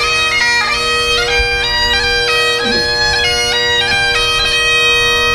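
Highland bagpipes playing a tune: a steady drone under a melody of held, stepping notes on the chanter.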